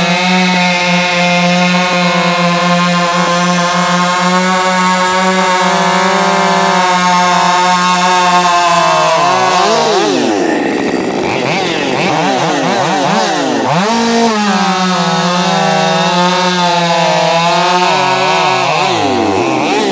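Two-stroke Husqvarna 550 XP chainsaw engines running at full throttle, cutting through logs with .325 full-chisel chain. The pitch holds steady in the cut for the first nine seconds or so. From about nine to fourteen seconds it swings down and back up repeatedly, with two engine notes crossing. It settles again, then dips and rises once more near the end.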